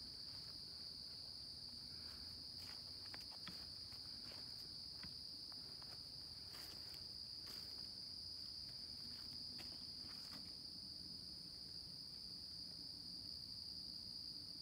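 Steady high-pitched chorus of crickets and other insects, one even unbroken trill. Faint rustling footsteps in leaf litter sound now and then during the first ten seconds or so.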